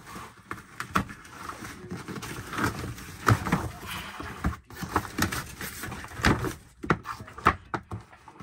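Irregular clicks, knocks and rustling of household clutter being handled and shifted, with sharper knocks about three, six and seven and a half seconds in.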